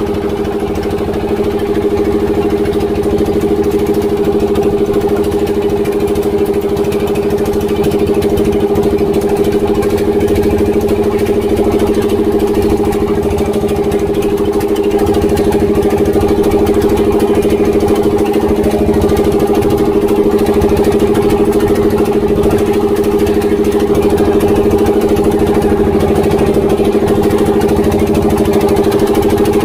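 A Tianli 1115 single-cylinder diesel inboard on a small wooden boat, running at a steady, even drone under way. Water rushes along the hull. The sound gets slightly louder about two seconds in, then holds steady.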